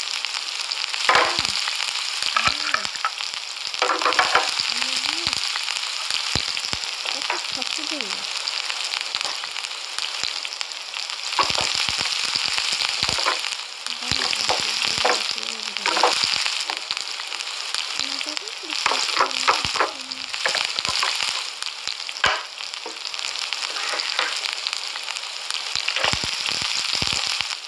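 A steady frying sizzle as slime food strips are laid on a griddle and pushed about with a spatula, with scattered clicks and short wet squelches.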